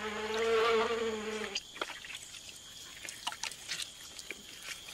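A fly hovering close by, its wings making a steady low buzz that cuts off suddenly about a second and a half in. Faint scattered clicks and ticks follow.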